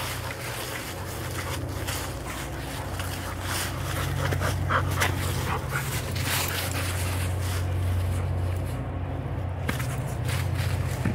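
A dog panting as it chases a ball through dry fallen leaves, with scattered rustles and crunches of leaves underfoot over a steady low rumble.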